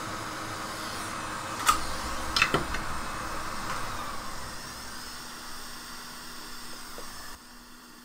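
Steady fan-like whir with a faint hum, broken by two sharp clicks about two seconds in; the whir drops away near the end.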